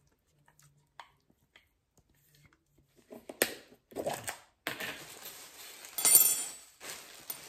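Kitchen handling sounds from a plastic yogurt tub: a sharp knock about three seconds in, then clattering and crinkling plastic as the tub is handled and its lid worked open, loudest about six seconds in.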